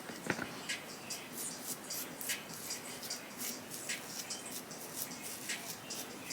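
Short, scratchy strokes of a small edge-control brush smoothing hair along a hairline, coming irregularly at about two a second, with a light tap about a third of a second in.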